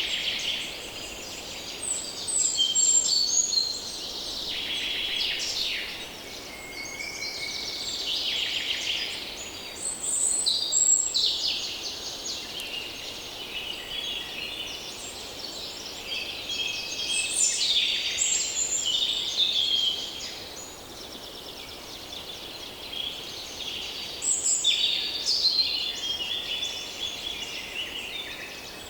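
Dawn-chorus-like mix of many wild birds singing and calling at once: overlapping trills, chirps and short whistles, with no pause, over a faint steady background hiss.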